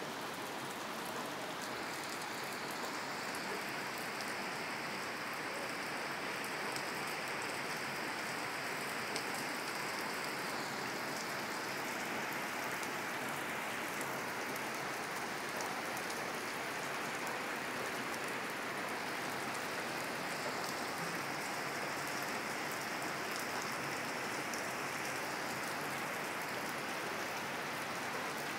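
Heavy rain pouring steadily onto a flat concrete rooftop and the surrounding palm trees, an even, unbroken hiss.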